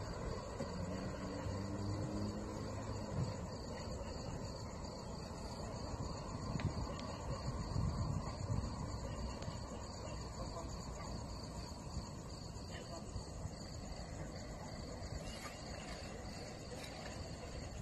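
Crickets chirping in a steady, fast-pulsing high trill over a low rumbling background.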